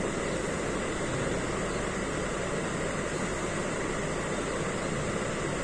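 Steady background noise: an even hum and hiss that does not change, with no separate events.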